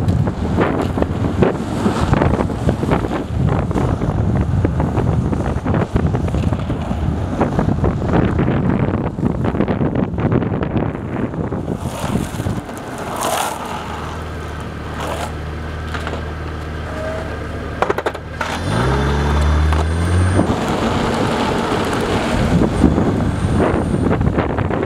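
Wind buffeting the microphone of a camera riding in a moving follow car, over road and tyre noise. About halfway through the wind eases and the car's engine is heard running steadily, then revving up with a rising pitch before the wind noise returns.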